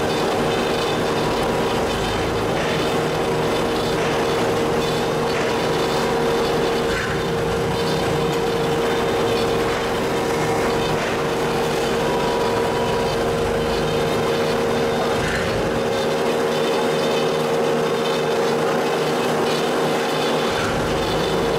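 DoAll C-170 horizontal bandsaw, a 5 HP three-phase machine with hydraulics, running with a steady mechanical hum and a constant mid-pitched tone.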